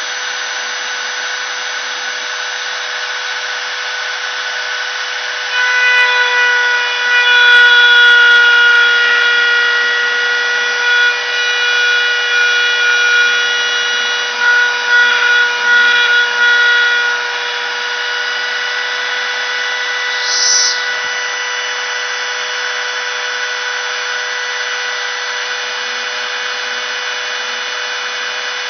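CNC router spindle running with a steady high whine. From about 6 to 17 seconds in it grows louder and rougher, with extra overtones, as the bit cuts, and then settles back to its steady whine.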